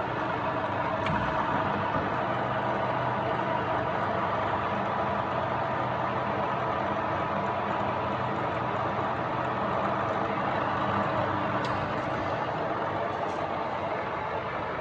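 A 1982 GSP type 205 R column drilling machine running: a steady mechanical running sound with several held tones, and a few light clicks, one about a second in and a few near the end.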